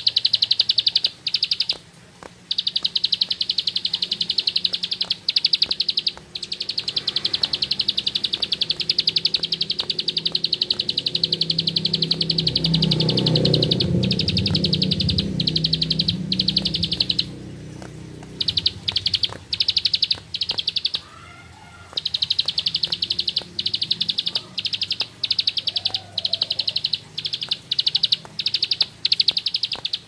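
Caged ciblek sawah, a prinia, singing a long, very fast, high-pitched drill-like trill. The trill is broken by a few short pauses and turns into choppier short bursts in the second half.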